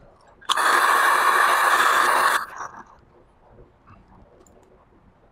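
Handheld hairdryer blowing in one burst of about two seconds, then switched off, heating a 3D-printed plastic railing to soften it for bending.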